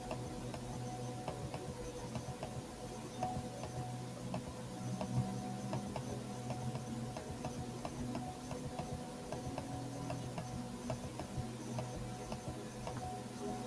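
Light ticking clicks coming several times a second over a steady low hum.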